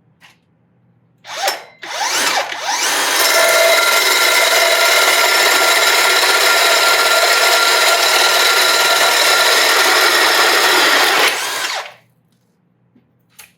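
Drill on speed 2 driving a 4 5/8-inch Milwaukee Big Hawg carbide-tooth hole saw through an old, hard 2x6 board. A short blip of the trigger comes first, then about ten seconds of steady drilling and cutting that stops abruptly near the end.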